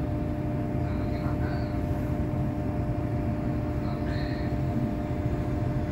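Cabin of a Scania/Higer Fencer F1 battery-electric bus: a steady electrical hum over a low rumble, with a few faint high chirps now and then.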